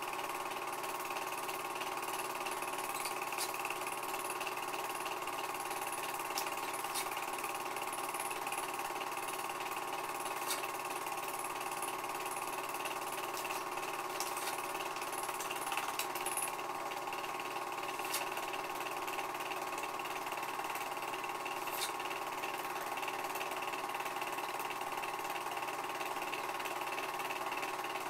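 Film projector running: a steady mechanical whir with an even hum and a few faint clicks.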